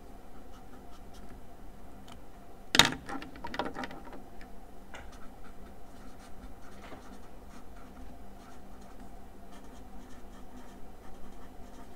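Felt-tip marker scratching and squeaking on paper in short strokes while handwriting, with a louder brief knock about three seconds in.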